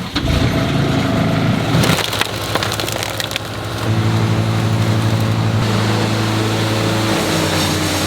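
Wood chipper chewing through branches, with wood cracking and splintering, then an engine running steadily from about four seconds in.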